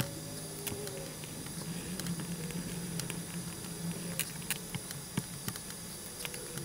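Colored pencils on paper and desk: scattered small taps and clicks over a faint scratchy hiss of shading.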